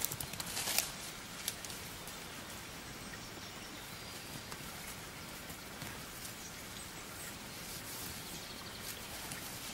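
Wild boar piglets rustling and scuffling as they root around an old blanket on soil, with a few sharp rustles in the first second and a half and fainter ones after, over a steady outdoor hiss.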